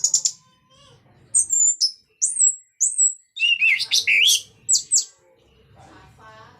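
Orange-headed thrush singing: a string of short, clear whistled phrases with sliding notes, broken by brief pauses and a longer pause near the end.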